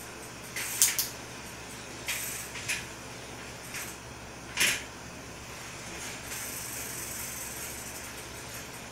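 A three-speed bicycle being worked by hand while its rear wheel and caliper brakes are tested. There are a handful of short clicks and brief scrapes, the sharpest just under a second in and the longest at about four and a half seconds. From about six seconds a faint steady whir follows.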